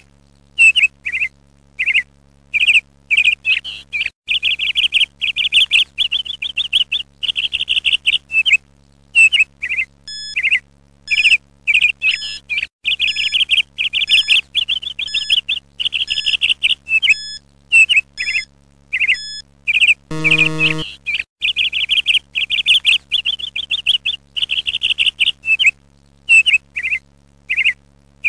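Songbird chirping and trilling in quick, repeated phrases, played as a steady background track. About twenty seconds in, a short low buzzing tone sounds once.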